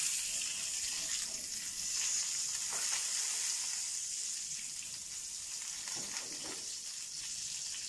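Whole and crushed spices (fennel seeds, cumin, red chilli flakes, coriander seeds and nigella seeds) sizzling steadily in hot oil in a frying pan on a low flame, stirred with a silicone spoon, with a couple of soft scrapes.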